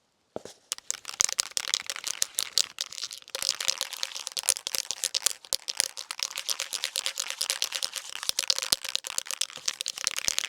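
Dense, irregular crinkling and crackling, like something being handled and crumpled.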